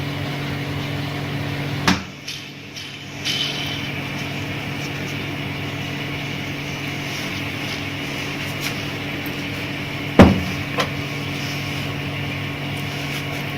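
Two sharp metal knocks about eight seconds apart, the second the louder, from work on the exhaust fan motor's bearing as it is changed, over a steady mechanical hum.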